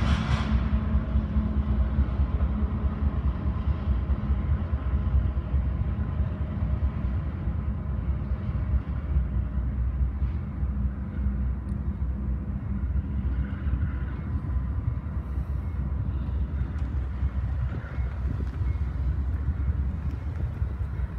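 Low, steady rumble of a BNSF diesel freight locomotive approaching at a distance.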